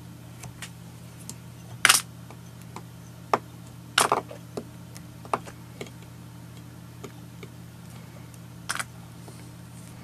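About a dozen scattered soft clicks and ticks as fingers form a three-turn hand whip finish with fine tying thread at the head of a fly. The loudest are near 2 s, 4 s and 9 s, over a steady low hum.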